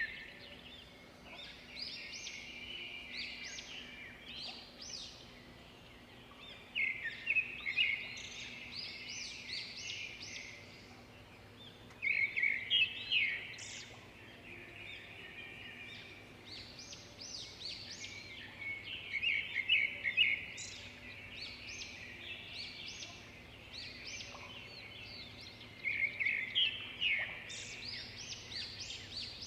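Birds chirping and trilling in a forest ambience, with louder clusters of rapid chirps every several seconds.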